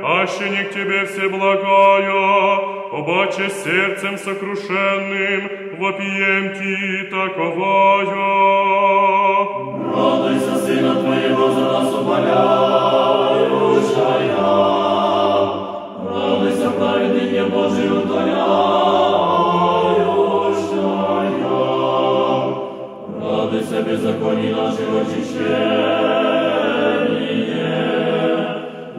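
Orthodox church choir singing an akathist in Church Slavonic, unaccompanied. First a melody moves over a held low chord; from about ten seconds in the full choir sings in close harmony with deep basses, pausing briefly twice.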